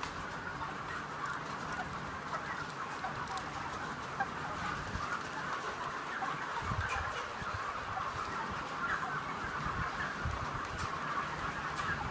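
A large flock of broiler chickens in a poultry shed, clucking and peeping together in a dense, continuous chorus, with a few dull low knocks past the middle.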